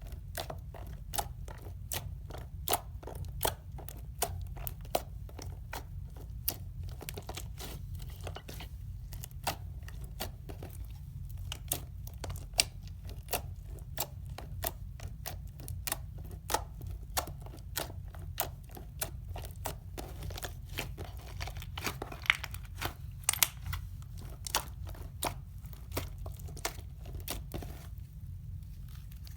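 Slime being squished and worked by hand, giving a rapid, irregular run of sharp crackling clicks and pops that thin out near the end, over a low steady hum.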